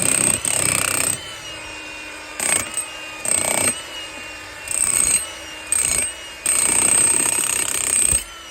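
A power tool run in short repeated bursts of about half a second to a second, then one longer run of almost two seconds near the end, with a steady mechanical hum continuing between bursts.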